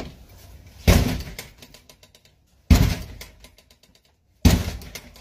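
A handheld police battering ram strikes a front door three times, heavy blows about two seconds apart, each one dying away quickly.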